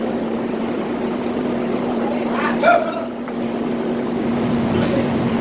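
Engine running steadily with a constant low hum. A short shout comes about halfway through.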